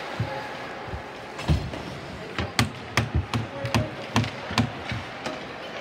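A quick run of sharp wooden clacks and knocks, about ten in four seconds, from hockey sticks and puck striking on the ice and boards, over the steady hum of the rink.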